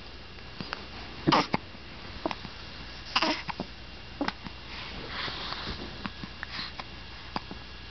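Two-week-old infant hiccuping: about four short, sudden hiccups one to two seconds apart, with faint sucking clicks between them.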